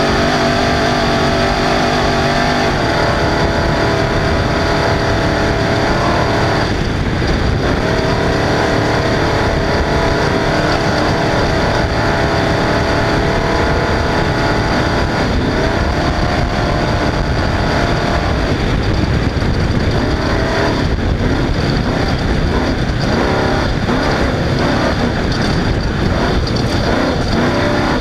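Off-road race car engine running hard over a lap. Its pitch rises and falls with throttle and gear changes, over a steady noisy rush.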